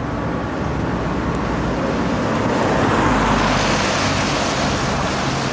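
Street traffic noise on a wet road: a steady rushing hiss that swells about halfway through as a vehicle goes by.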